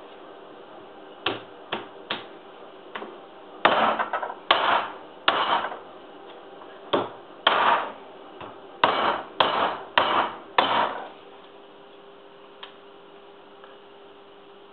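Freezer-chilled Prandi Yankee small axe chopping across rib bones on a wooden cutting board: about a dozen sharp chops, a few light taps first, then heavier blows from about four seconds in, stopping at about eleven seconds.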